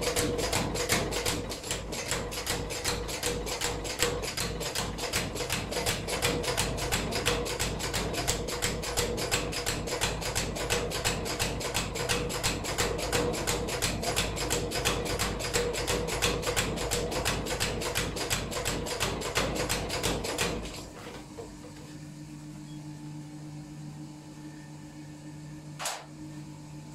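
Power hammer forging red-hot iron: rapid, steady blows several a second, which stop about twenty seconds in. A steady low hum and one sharp knock near the end follow.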